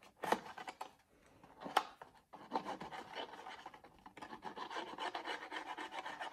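Fingers rubbing and pressing along the glued seam of a rolled sheet of patterned paper, a continuous dry scratchy rubbing of paper. Two short taps come in the first two seconds, and the rubbing starts about two and a half seconds in.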